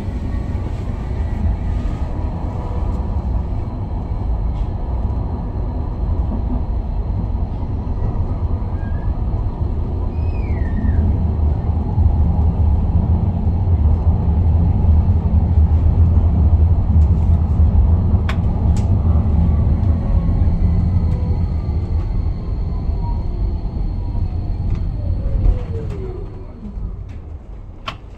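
Tram running along the rails, a heavy low rumble of wheels and running gear. Near the end a motor whine glides down in pitch and the rumble fades as the tram slows.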